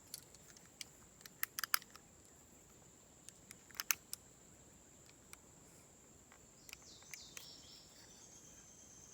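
Faint outdoor ambience: a steady high-pitched insect drone, with a few scattered light clicks in the first half and a brief high chirping sound near the end.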